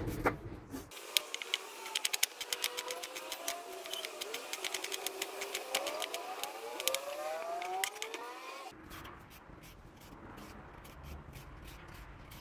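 Kitchen knife slicing an onion on a wooden chopping board, a fast run of sharp clicks lasting about eight seconds, with thin whistling tones gliding up and down behind it. Near the end it turns quieter, with sparse scraping clicks as a carrot is peeled.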